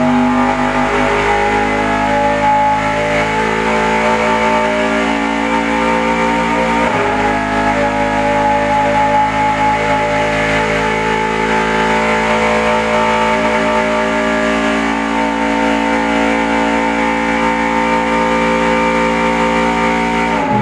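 Roush Yates Ford Daytona Prototype racing V8 running on an engine dynamometer through a simulated Daytona lap, held at a high, nearly steady pitch. Its pitch dips briefly about seven seconds in and drops again right at the end.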